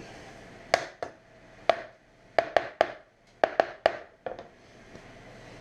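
Knife chopping food on a cutting board: about ten sharp knocks in uneven groups.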